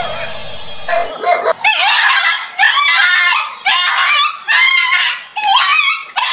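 A dog barking repeatedly in quick runs of barks.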